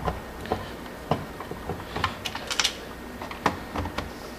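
Screwdriver working screws out of the plastic base of a Cisco 7960/7940 IP phone: a string of irregular small clicks and ticks as the bit seats and turns and the plastic housing is handled.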